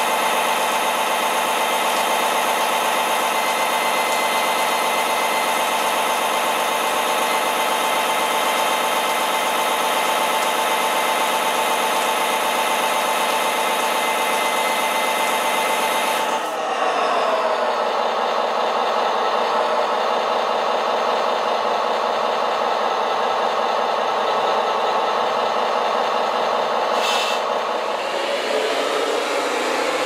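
Scale RC fire truck running with its roof water cannon spraying: a steady mechanical hum made of many even tones. About halfway through, the sound shifts abruptly to a rougher, wavering running noise.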